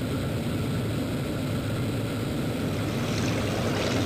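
Piston engine of a WWII propeller fighter plane running steadily in flight, heard from inside the cockpit.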